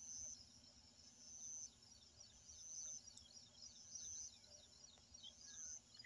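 Near silence, with faint high-pitched chirping in the background: rapid little chirps and a short trill repeating every second or so.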